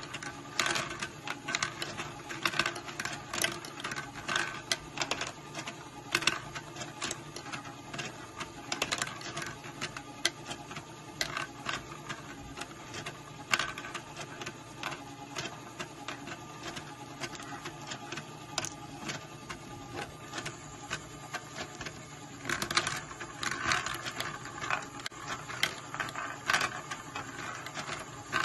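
LEGO Great Ball Contraption sweeper module running: an electric motor and plastic gears whir steadily while the rotating sweeper arms knock and click irregularly, with small plastic balls clattering against the LEGO parts.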